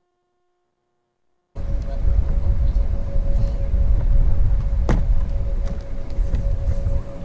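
Near silence, then about a second and a half in a loud low rumble of wind buffeting the microphone cuts in, with a steady mid-pitched whine under it and a single sharp click near the middle.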